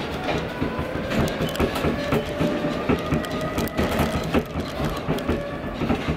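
Electric warehouse order picker running in a shelving aisle: a steady motor whine under frequent rattles and knocks from the machine.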